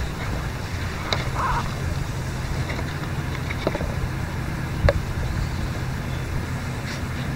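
Steady low mechanical hum, with a few light clicks and one sharper knock about five seconds in as a metal paint can is lifted and tipped to pour.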